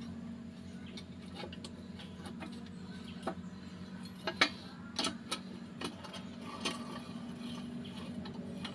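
Scattered light metallic clicks and knocks as the aluminium halves and bolts of a motorcycle crankcase are handled and fitted together, over a steady low hum.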